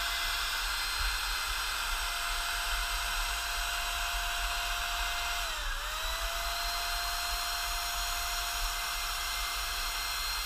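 Handheld Topvork electric paint sprayer running while spraying paint: a steady motor whine over an airy hiss. The pitch dips briefly a little past halfway and comes straight back up.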